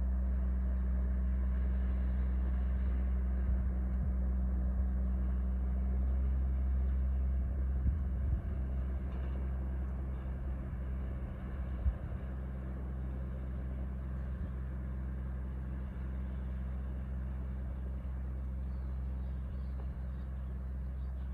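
Steady low drone of a squid-fishing boat's diesel engine running at cruising speed, a little quieter after about a third of the way in, with two short knocks along the way.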